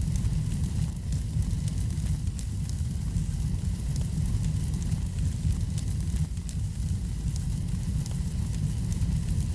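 Wood fire burning in a fireplace: a steady low rumble of the flames with frequent small, sharp crackles and pops of the burning wood.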